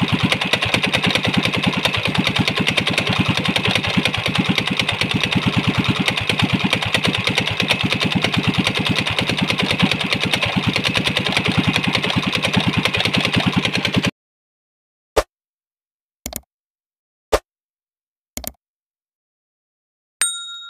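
Small air-cooled single-cylinder engine running steadily at a fast, even beat, cut off abruptly about two-thirds of the way through. Then four short clicks about a second apart and a ringing chime.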